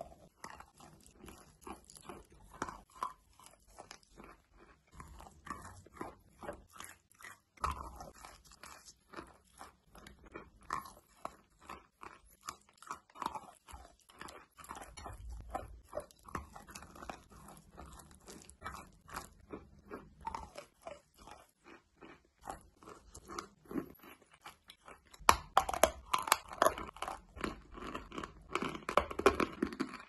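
Close-up crunching and chewing of crumbly white pieces coated in a wet white paste, with sharp cracks and soft wet mouth sounds. The crunching grows louder and denser near the end.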